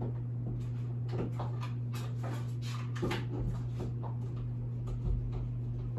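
A steady low hum with scattered faint knocks and clatter as tools are picked up and handled.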